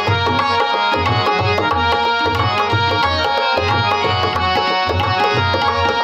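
Tabla playing a steady rhythmic accompaniment, the bayan's deep bass strokes booming about twice a second under quicker dayan strokes, beneath a sustained keyboard melody.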